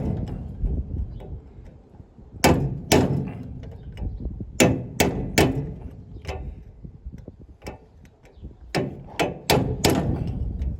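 Hammer blows on a punch set in the hole of the bearing's locking collar, driving the collar to the left to loosen it from the combine's secondary countershaft. Metal-on-metal strikes come in groups of two to four, with short pauses between.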